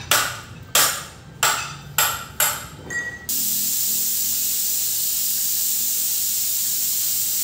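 Edited-in sound effect: a sharp hit repeating as a fading echo about every 0.6 s, six times, then a steady loud hiss that starts suddenly and cuts off abruptly.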